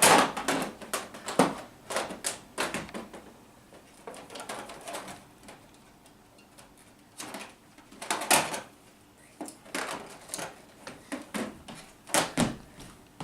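Plastic parts of a Nerf toy blaster being handled and pulled apart, a series of irregular clicks and knocks; the attachments are stiff and hard to remove.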